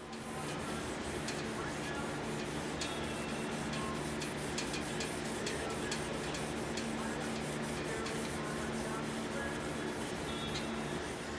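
Sandpaper on a hand block rubbed back and forth along a W2 high-carbon steel tanto blade: hand sanding the blade toward a polish, a steady scratchy hiss with scattered small clicks, over a low steady hum.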